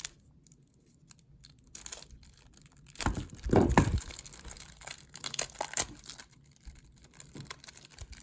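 Packaging of a Chaotic trading card starter deck being torn open by hand. After a couple of quiet seconds comes a loud rip about three seconds in, then scattered crinkling and rustling as the wrapper is pulled away.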